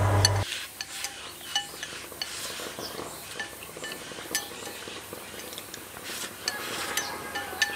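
Chopsticks clicking and scraping against a ceramic bowl as fried rice is shovelled from it and eaten: short, light clinks that come more often near the end. A steady low hum cuts off about half a second in.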